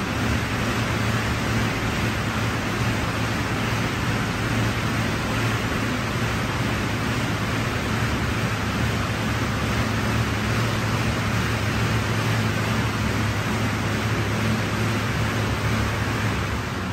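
Steady, loud rushing noise with a low hum underneath, like air blowing close to the microphone, with no rhythm or strokes in it.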